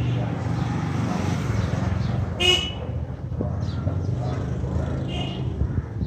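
Motorcycle engine running as it rides close past, with a short horn toot about two and a half seconds in.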